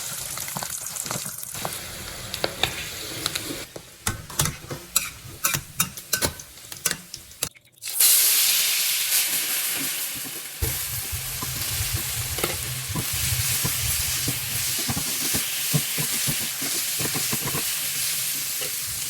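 Beef lung and chili sambal frying in hot oil, with a spatula scraping and clicking against the pan as it is stirred. After a brief drop about eight seconds in, a louder, hissier sizzle sets in and runs on steadily with occasional stirring clicks.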